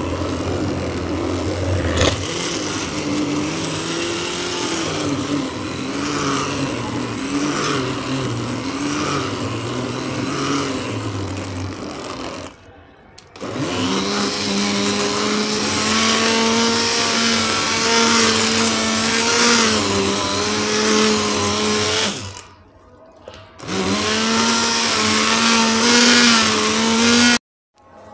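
Electric stick blender running in a pot of thick lentil-and-chicken haleem, puréeing it, its motor pitch wavering as the load changes. It cuts out briefly twice, about halfway through and again near the end, and starts up again each time.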